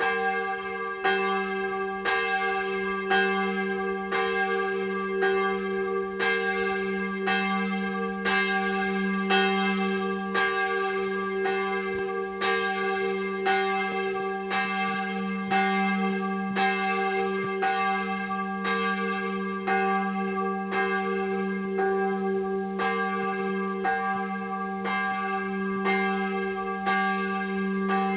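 Church bell ringing at an even pace of about one stroke a second, each stroke renewing a long, sustained hum that carries on between strokes.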